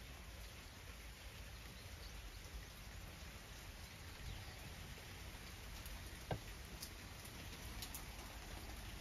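Faint steady rain falling, with a single sharp tap a little after six seconds in.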